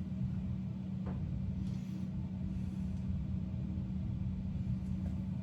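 VEVOR 7x14 mini lathe running steadily, its motor and spindle giving a constant hum, with a faint click about a second in.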